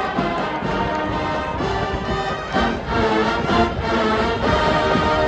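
Marching band playing, its brass section sounding full held chords that change every second or so, echoing around a stadium.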